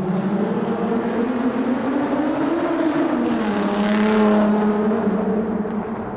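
Car engine in a tunnel, rising in pitch as it accelerates, then dropping in pitch about halfway through. It grows loud and then fades near the end.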